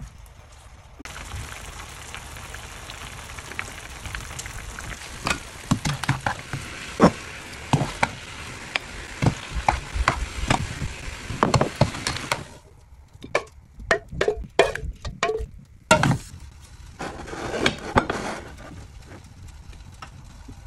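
Broccoli sizzling in soy sauce in a nonstick wok while a spatula stirs and scrapes against the pan, with sharp clicks and knocks. The sizzle cuts off about two-thirds of the way through, leaving scattered clicks and knocks and one short further burst of sizzle.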